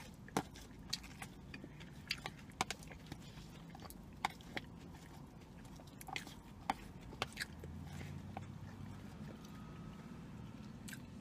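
Close-up chewing of a mouthful of spinach chicken mango salad: soft wet mouth clicks and smacks scattered irregularly, over a low steady hum that grows a little stronger about seven and a half seconds in.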